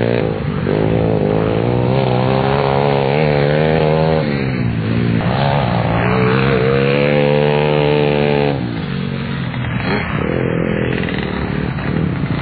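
2008 Squirt pit bike engine ridden hard on a dirt track, revving up twice with its pitch climbing through the gears. About eight seconds in the throttle drops off and the engine runs lower and quieter.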